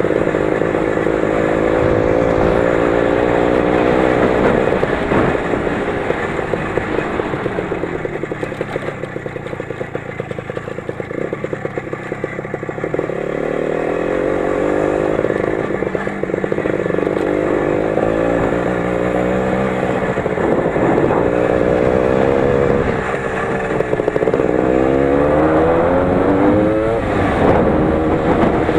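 A 20 hp Lider motorcycle's engine running under way, its pitch rising and falling as the throttle is opened and eased. It drops lower and quieter about ten seconds in, then revs up in several quick rising sweeps near the end.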